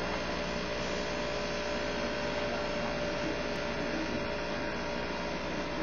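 Steady electrical hum and hiss: a low mains hum under a constant noise with a few faint steady tones, and no other events.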